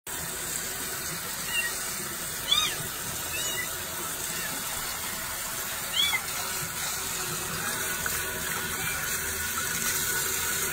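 A newborn kitten mewing a few times in short, high-pitched calls, over the steady hiss of water running from a tap into a sink.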